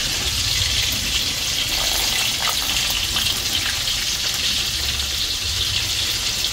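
Steady sizzling hiss of pots cooking on the stove, the liquid in the pot at a rolling boil.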